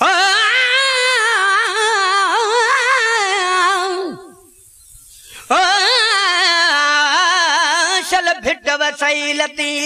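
A solo voice singing a naat in long, wavering, ornamented notes without clear words, in two phrases with a pause of about a second between them. Near the end the notes break into quicker, shorter turns, with a few sharp clicks.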